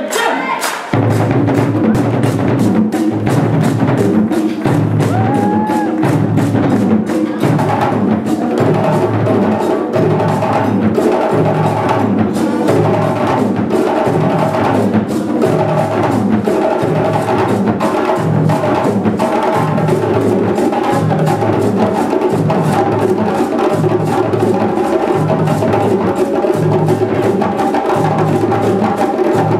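West African djembe ensemble drumming: a fast, dense rhythm of sharp slaps over deep, evenly repeating bass strokes. A steady pitched part joins about seven seconds in.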